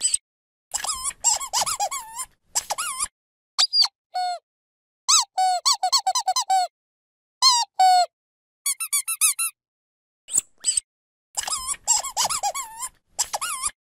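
Dog squeaky toy squeezed over and over: fast runs of short squeaks alternating with single longer squeaks, each bending up and down in pitch, with silent gaps between.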